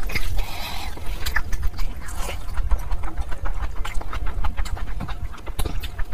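Close-miked wet chewing and lip-smacking with a full mouth of curry and fried rice: a dense run of quick clicks and smacks. Near the start, a brief squelch of a hand mixing rice into gravy.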